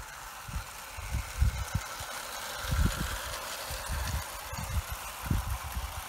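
A tinplate O-gauge model goods train passes close by, its wagons rolling and rattling along the garden-railway track in a steady run, strongest around the middle. Irregular low rumbles and thumps come and go over it.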